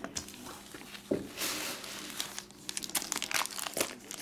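Plastic card-pack wrapper being crinkled and crumpled by hand in irregular crackles, with a longer rustle about a second and a half in.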